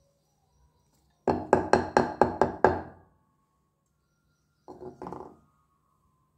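A lump of clay knocked repeatedly against a slate board: about seven quick, sharp knocks over a second and a half, each ringing briefly, then a softer flurry of knocks a couple of seconds later.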